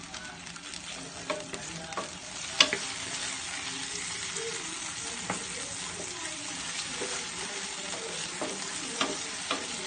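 Tomato and onion sizzling in hot oil in a nonstick frying pan while a wooden spatula stirs them, a steady hiss with a few sharp clicks, the loudest about two and a half seconds in.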